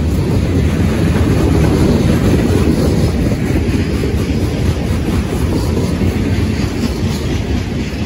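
Freight train of open-top and covered hopper cars rolling past, its steel wheels on the rails making a loud, steady, low rolling noise.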